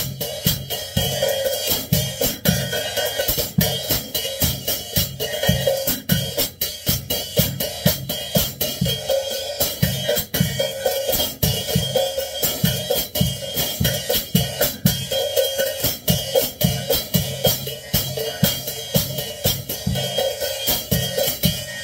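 Acoustic drum kit played with wooden sticks: a steady groove of bass drum, snare and cymbals, with several strikes a second. The drumming cuts off at the end.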